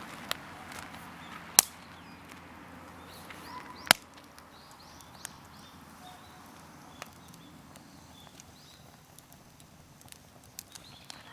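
Firewood giving sharp, short cracks at irregular intervals, about five in all, the loudest about one and a half seconds in.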